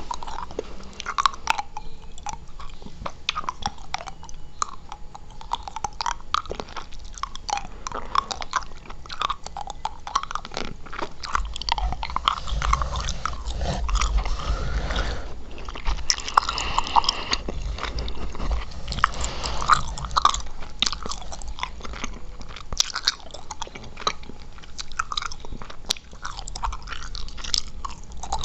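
Close-miked mouth sounds of chewing gum: a continuous run of quick clicks and smacks.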